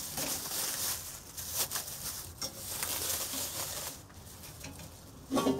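Plastic bag and wrapping rustling and crinkling as pieces are pulled out of it, for about four seconds, then dying down. A short burst of voice comes just before the end.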